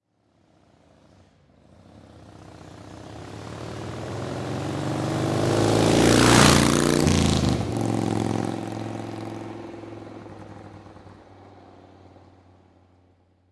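A motorcycle driving past. Its engine note grows steadily louder over about six seconds, drops in pitch as it passes, then fades away.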